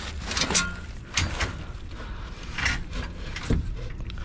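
Metal parts being handled inside a fan coil unit cabinet: a few irregular scrapes and clunks over a low rumble.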